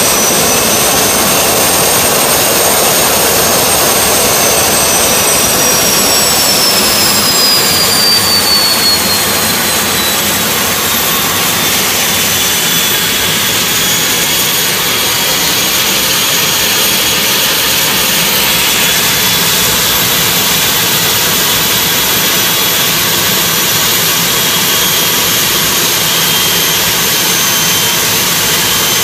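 L1011 TriStar APU, a twin-shaft ST6L-73 gas turbine derived from the Pratt & Whitney PT6, running loudly and steadily. A dense rush of air carries a high whine that falls in pitch over the first ten seconds or so, then holds steady.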